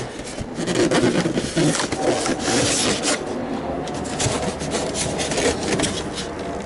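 Styrofoam packing rubbing and scraping against the inside of a cardboard box as it is worked loose, with a few short squeaks in the first couple of seconds.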